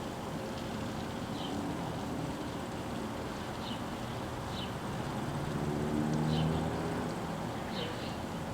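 Outdoor background noise with short bird chirps every second or so and a low engine hum that swells about six seconds in, then fades.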